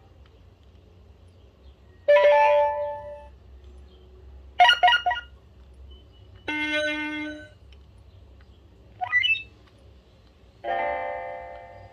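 BlackBerry 8820 alert tones played one after another: five short, different electronic chimes about two seconds apart, one of them a quick rising sweep.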